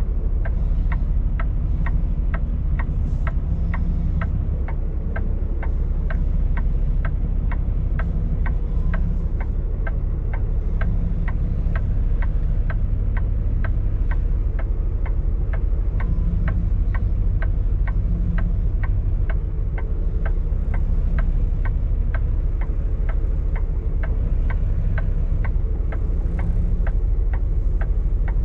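Semi truck's diesel engine running low and steady, heard from inside the cab, with the indicator flasher clicking evenly about two and a half times a second.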